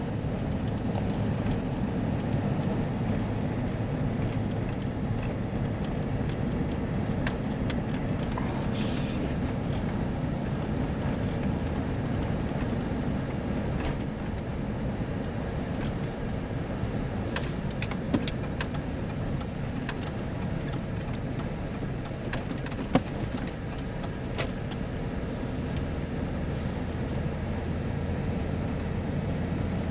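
Chevy car driving steadily, with engine and road noise, being road-tested over bumps after a no-start. Two brief sharp knocks stand out over the running noise, one a little past halfway and one about three-quarters through.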